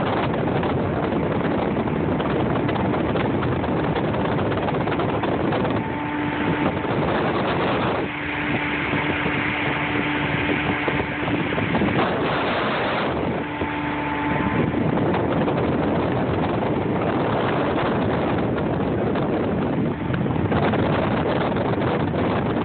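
Steady wind buffeting the phone's microphone as a pontoon boat cruises, with the boat motor's steady hum showing through from about a quarter of the way in to past the middle.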